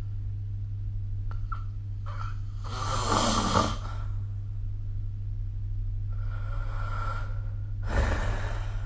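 A person snoring in their sleep: two loud snoring breaths, about three seconds in and again near the end, with a quieter breath between them, over a steady low hum.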